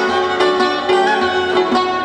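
Instrumental folk ensemble: a long-necked lute plucked over a steady held note, a bowed spike fiddle, and a frame drum keeping a soft beat.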